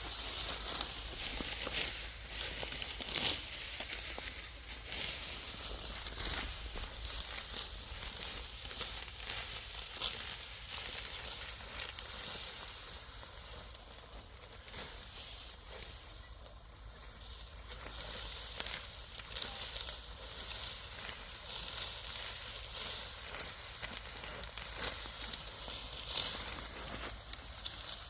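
Dry, ripe wheat stalks crackling and rustling as they are cut or pulled by hand, with many irregular sharp crackles over a dry hiss.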